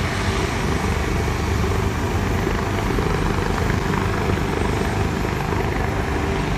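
Air ambulance helicopter running steadily on the ground, a continuous engine and rotor drone with no change in pitch or level.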